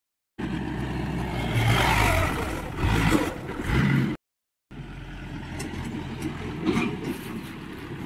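Diesel engine of heavy machinery running and revving. It breaks off abruptly about four seconds in, and after a short silence an engine runs more quietly and steadily.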